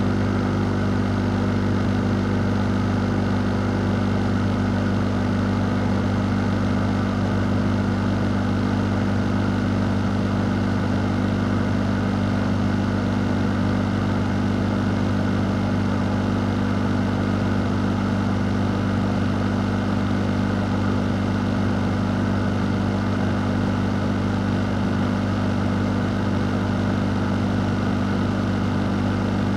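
Fan running steadily: an even airy whoosh over a constant low hum, unchanging throughout.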